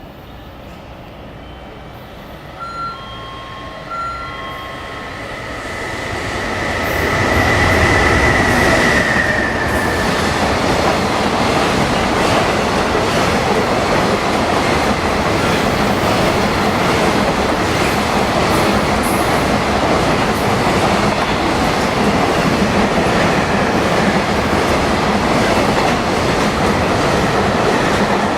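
EF210 electric freight locomotive approaching and passing at speed, followed by the long freight train's wagons rumbling and clattering over the rails until the end. A steady high tone grows as the train nears and drops in pitch as it goes by, about nine seconds in. Two short tones sound about three and four seconds in.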